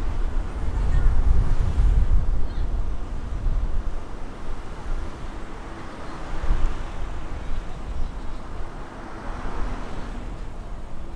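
Low rumble of road and wind noise from a car driving along a city street, heaviest in the first couple of seconds and then easing to a steadier, quieter hum.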